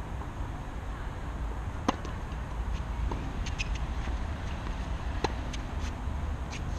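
Tennis rally on a hard court: sharp pops of the ball off the rackets and the court, the two loudest about two seconds in and just past five seconds, with fainter ones in between, over a steady low rumble.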